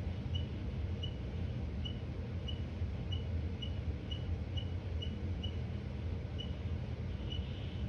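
Short high-pitched chirps repeating at slightly uneven intervals, about one or two a second, over a steady low hum.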